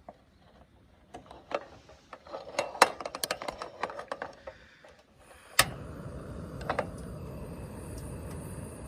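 Camp cookware being handled, with a run of small clinks and knocks for a few seconds. Then one sharp click about halfway through, followed by a steady rushing hiss.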